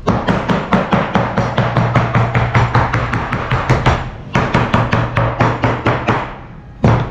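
Rubber mallet tapping a formica laminate sheet laid on plywood, about five knocks a second, bedding the sheet onto its glue. The tapping breaks off briefly about four seconds in, stops about six seconds in, and one last knock comes near the end.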